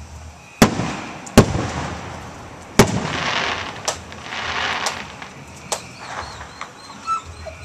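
Aerial fireworks shells bursting: three loud bangs in the first three seconds, each trailing off in a rolling echo, followed by a hiss and a few smaller pops.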